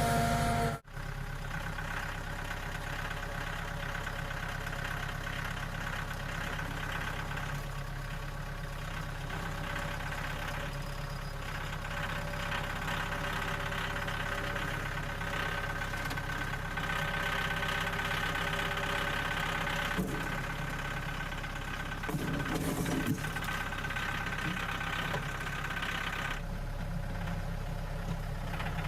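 An engine idling steadily, with a brief change in its sound near the end.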